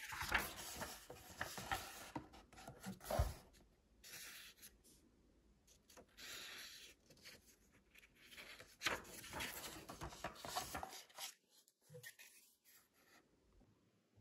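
Paper rustling and rubbing as the pages of a hardcover book are handled and smoothed on a book stand, in several swishes of a second or two each, with a soft knock about three seconds in.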